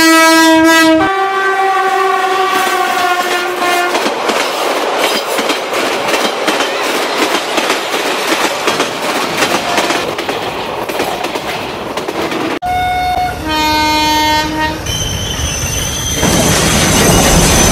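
Train horn sounding in two blasts, then the steady clatter of a train running on rails. After an abrupt cut comes another horn blast, and near the end a high squeal of train wheels with hiss.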